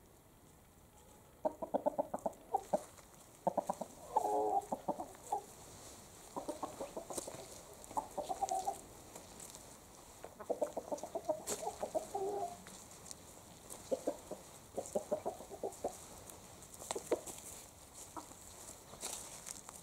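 Chickens clucking: quick runs of short clucks in bursts every couple of seconds.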